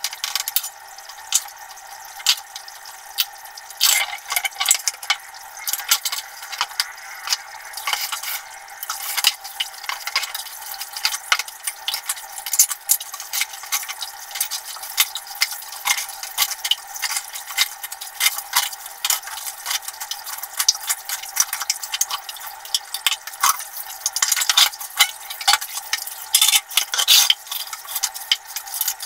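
Dishes being washed by hand: metal pots, bowls and utensils clinking and scraping against each other in splashing soapy water, with frequent sharp clinks.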